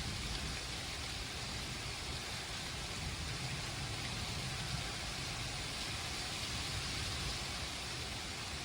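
Steady rain falling in a thunderstorm, an even hiss with a low rumble underneath.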